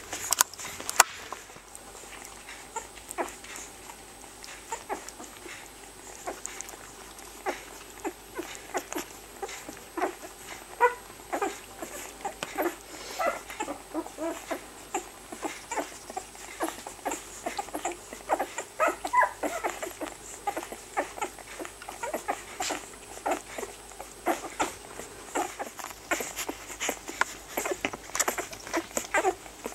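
Week-old rough collie puppies nursing from their mother: a dense run of quick wet suckling clicks and smacks, with small squeaks in between.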